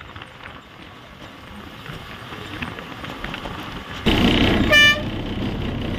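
Steady running and road noise of a moving bus heard from inside, slowly growing louder; about four seconds in it jumps louder and a vehicle horn gives one short toot.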